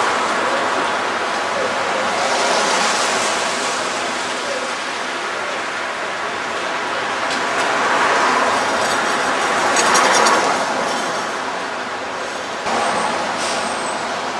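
City street traffic: cars and trucks passing, the noise swelling and fading as each goes by, with a brief hiss typical of a heavy vehicle's air brakes. The level jumps suddenly near the end.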